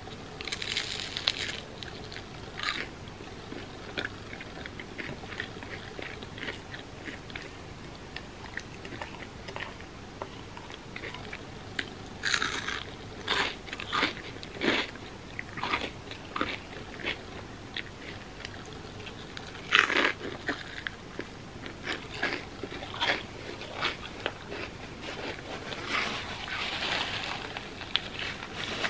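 Person biting and chewing crispy fried mochi bread: several loud crunching bites spread through, with quieter chewing clicks between.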